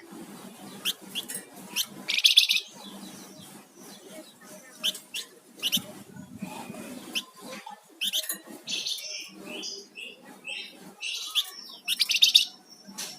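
A flamboyan songbird singing vigorously in a fast stream of sharp chirps, whistled notes and buzzy high trills. The loudest bursts come about two seconds in and again near the end.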